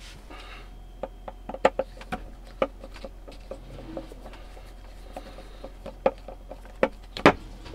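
Screwdriver undoing the screws of a 12V water pump's plastic front cover, with irregular light clicks and taps of metal on plastic and hands handling the pump. The sharpest knock comes near the end.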